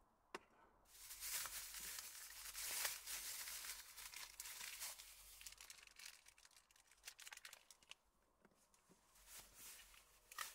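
Plastic food packaging being torn open and crinkled by hand. It starts about a second in as a dense rustle and tears, then thins to scattered crinkles with a sharp click near the end.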